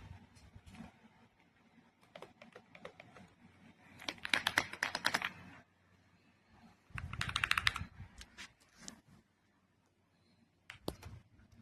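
Typing on an AULA S98 Pro gasket-mounted mechanical keyboard with pre-lubed linear switches. Scattered keystrokes are followed by two quick bursts of rapid typing, about four and seven seconds in, then a pause and a few more key presses near the end.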